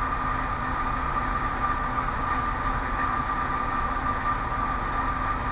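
Steady background hum with a constant high whine, unchanging throughout; no distinct clicks stand out above it.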